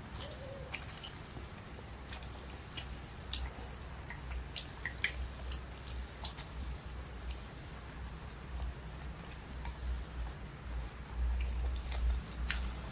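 A person chewing food close to the microphone, with scattered small clicks of eating, over a steady low hum.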